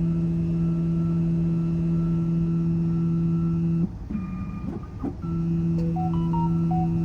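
An electronic key-cutting machine's motor runs with a steady, even hum during its cleaning cycle. It stops for about a second before the middle, then starts again. A few short beeps, stepping up in pitch, sound near the end.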